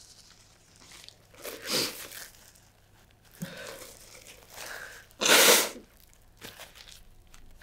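Paper tissue rustling as it is unfolded, then one loud nose blow into it about five seconds in, with a short breathy noise near the start.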